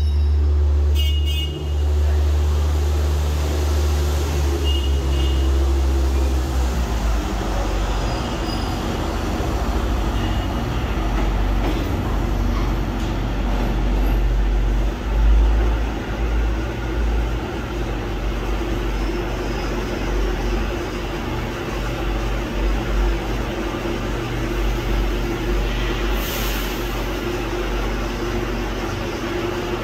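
NYC subway track geometry car (TGC4) running on the rails: a continuous rumble of wheels and motors with a steady hum. It is heaviest over the first several seconds, and there is a brief hiss near the end.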